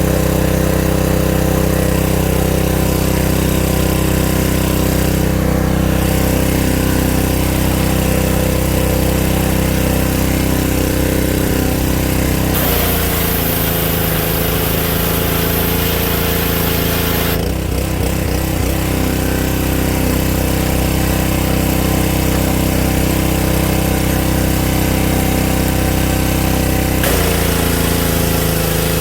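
Champion pressure washer's Honda GC190 single-cylinder engine running steadily at speed. Twice, about halfway through and again near the end, its pitch dips slightly and wavers for a few seconds.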